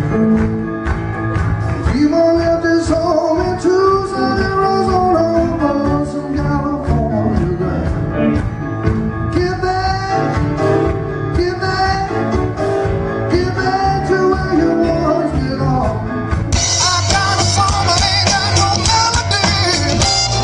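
Live blues-rock music: a man singing into a microphone over electric guitar and band, recorded from the audience. About three-quarters of the way through the sound changes suddenly to a brighter recording of a different live band performance.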